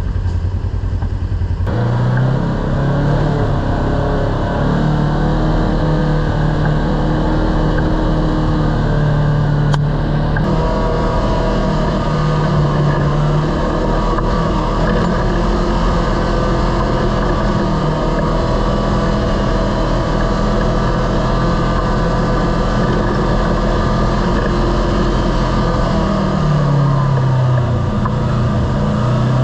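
Kawasaki Teryx KRX 1000 side-by-side's parallel-twin engine running under throttle on the trail. It revs up about two seconds in and holds a fairly steady pitch. Near the end it dips and climbs again.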